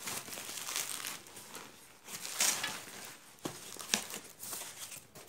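Bubble wrap and a cardboard box being unwrapped and opened by hand: crinkling plastic and rustling cardboard, loudest about halfway through, with two short sharp clicks a little later.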